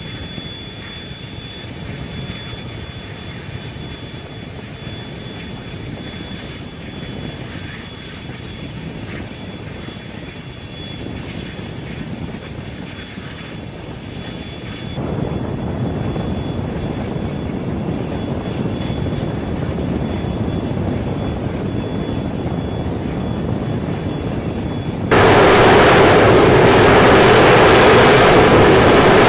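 Jet aircraft engines running on an aircraft carrier flight deck: a steady noise with a thin high whine, stepping up in level about halfway through and jumping suddenly much louder near the end.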